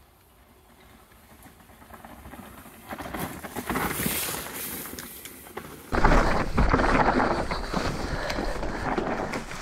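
A mountain bike approaches on a dirt trail and passes by, its tyre noise rising to a peak about four seconds in. About six seconds in the sound jumps to loud riding noise heard from on the bike: wind on the microphone and tyres running over dirt.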